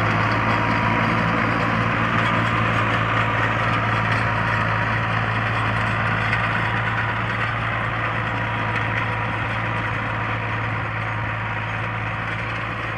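Fiat 480 tractor's diesel engine running steadily under load while pulling a rotavator through dry soil. The sound slowly fades as the tractor moves away.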